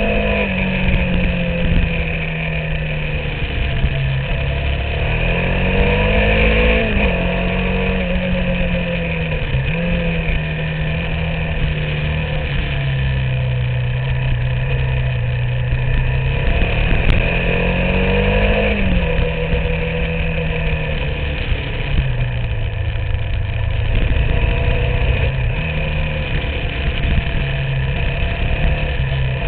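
Motorcycle engine heard from on board while riding, running at fairly steady revs. The revs climb and drop back twice, about a fifth and again about two-thirds of the way through.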